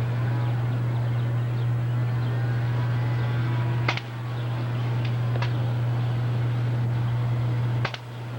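Airsoft gun firing two sharp snapping shots about four seconds apart, with a fainter click in between. A steady low hum runs underneath throughout.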